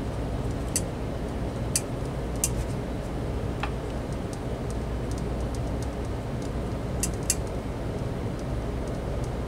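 A handful of light, sharp clicks as fingers work small parts of a Panasonic cordless phone's charging cradle during contact cleaning, over a steady low hum. Two of the clicks come close together about seven seconds in.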